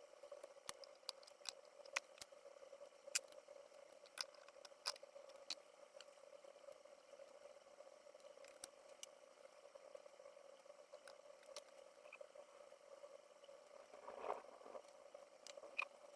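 Near silence: a faint steady hum with scattered faint clicks.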